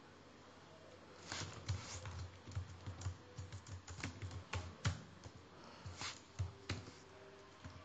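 Typing on a computer keyboard: irregular key clicks starting about a second in and stopping shortly before the end.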